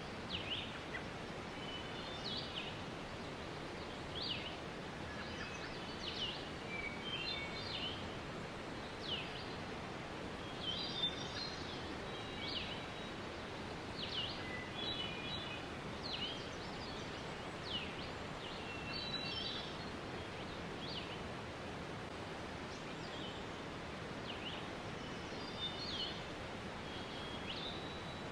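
Waterfall rushing steadily, with birds chirping over it: short, high, downward-sliding calls and brief trills every second or two.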